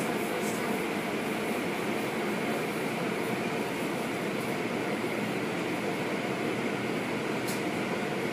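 Automatic car wash tunnel machinery running: tall rotating cloth brushes, their drive motors and water spray make a steady, even noise, heard through a window pane.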